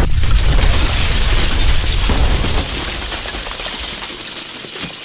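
Loud, harsh crash sound effect that starts abruptly and dies away slowly over several seconds.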